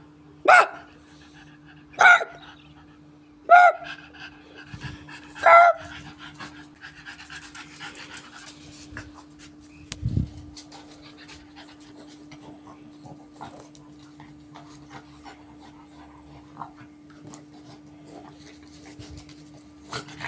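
A dog barks four times, one bark every second and a half to two seconds, then pants amid small scuffling noises. There is a dull thump about ten seconds in.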